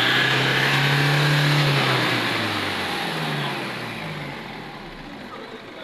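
Isuzu D-Max pickup engine revved up, held for about two seconds, then dropping back to idle. The engine has a misfire and doesn't rev out cleanly.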